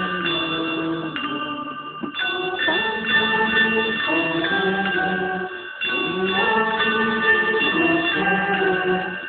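Handbell ensemble ringing a piece in sustained, overlapping chords, with voices singing along; the music breaks briefly between phrases about two seconds in and again near six seconds.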